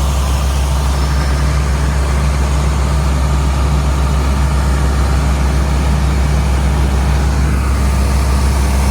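Combine harvester's diesel engine running steadily with a deep, even hum. One of its tones drops away about seven and a half seconds in.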